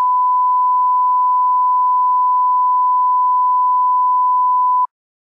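A steady 1 kHz line-up tone, the continuous pure beep that goes with colour bars as an audio level reference. It cuts off abruptly near the end.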